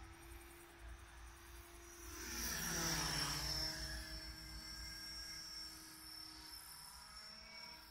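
Radio-controlled model helicopter, a Thunder Tiger AH-1 Cobra scale model, flying overhead with a steady high whine from its rotor drive. It grows louder as it passes closer about two and a half seconds in, then fades again.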